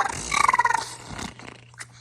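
A person imitating a car engine cranking and failing to start with the voice, a pulsing, wavering growl that dies away about a second in. A faint hum and a single click follow near the end.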